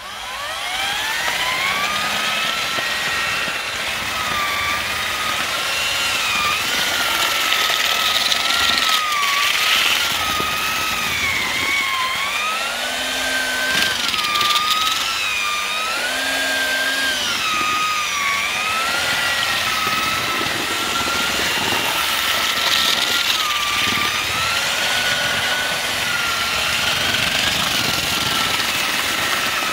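Eibenstock handheld paddle mixer spinning up and then running continuously as it churns hot-mixed lime mortar in a galvanised metal dustbin. Its whine rises as it comes up to speed, then wavers, dipping and recovering in pitch as the load changes.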